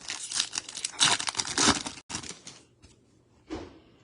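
Wrapper of a trading card pack being torn open and crinkled in the hands, a dense crackle lasting about two and a half seconds, loudest in the middle, followed by a single soft knock.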